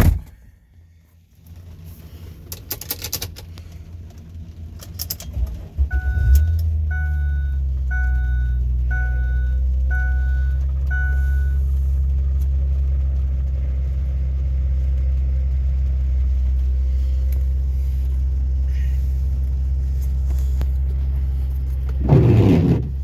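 2006 Ford Five Hundred's 3.0-litre V6 cranking and catching about six seconds in, then idling steadily. A few clicks come before the start, and a warning chime beeps six times, about once a second, just after the engine catches. A brief louder noise near the end.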